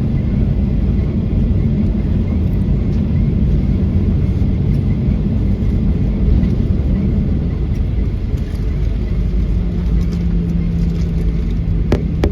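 Cabin noise inside a Boeing 737-800 taxiing after landing: a steady low rumble from the idling CFM56 engines and the airframe. A steady hum comes in about three-quarters of the way through, and there is a single sharp click near the end.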